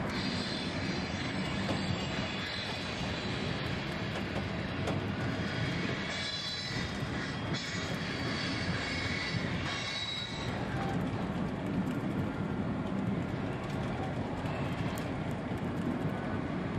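HO scale model train of flatcars loaded with trailers rolling along the layout track, a steady running noise of small wheels on the rails.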